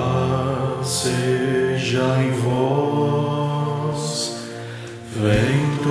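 Voices singing a slow Portuguese hymn of the Christian Congregation in Brazil, with long held notes. The singing drops briefly near the end, then comes back in full.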